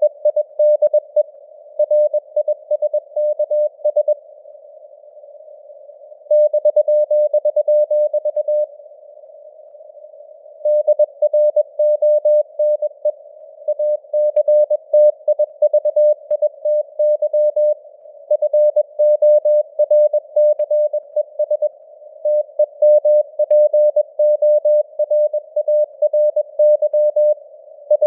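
Morse code (CW) sent at 21 words per minute: a single tone keyed on and off in dots and dashes over simulated radio hiss. Sending pauses twice, about four seconds in and again about eight and a half seconds in, for roughly two seconds each, leaving only the hiss.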